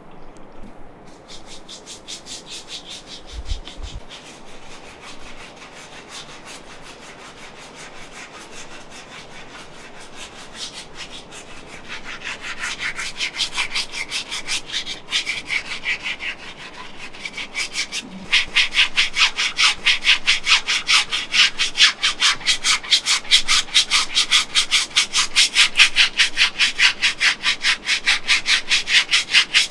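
Hands rubbing briskly back and forth over a person's back during a massage: a rhythmic scratchy rasping at about four strokes a second. It grows louder about twelve seconds in and again just past halfway.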